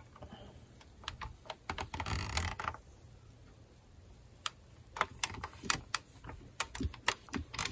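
Quiet scattered clicks and taps of a Sunbeam steam iron's plastic body being handled and moved over fabric on an ironing board, with a brief rustle of cloth about two seconds in.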